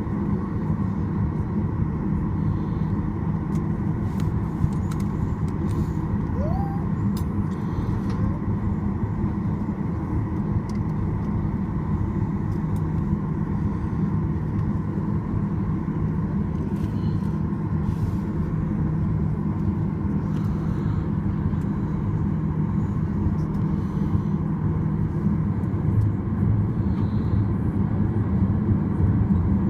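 Steady engine hum and rumble inside the cabin of a Boeing 737 on the ground, with a faint high whine over it; it grows a little louder near the end.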